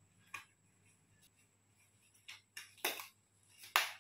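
A few short, sharp handling sounds, the loudest near the end, as hands put on protective gloves and safety glasses.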